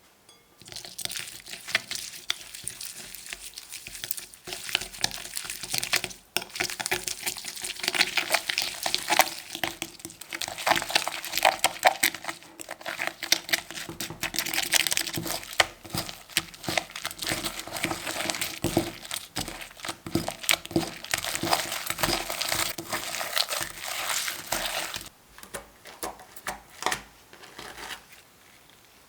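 Slime being kneaded and squeezed by hand, a dense, sticky crackling of many small clicks and pops that dies down near the end.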